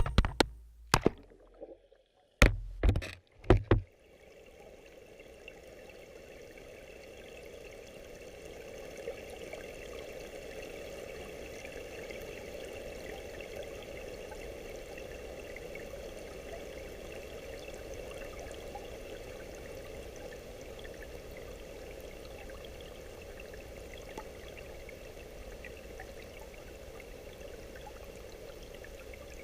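A few sharp knocks in the first four seconds, then a steady rush of water that fades in and holds on.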